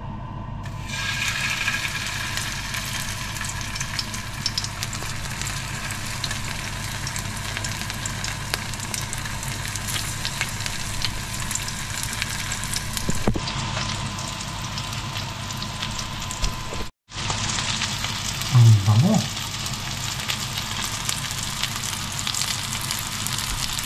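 Breaded pieces of king bolete (porcini) mushroom frying in hot oil in a pan: a steady, dense sizzle full of small crackles that starts as the first piece goes into the oil. A brief low sound stands out about three quarters of the way through.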